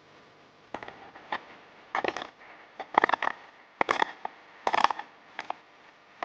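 Hand tools digging and scraping into gravel and stones: about eight short crunching scrapes, irregularly spaced.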